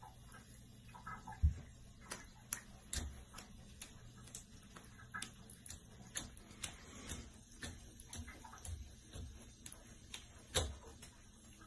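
Irregular light taps and clicks of a cat's paws and claws on a bathtub and its metal overflow cover. There are a few louder thumps, the loudest about a second and a half in and another near the end.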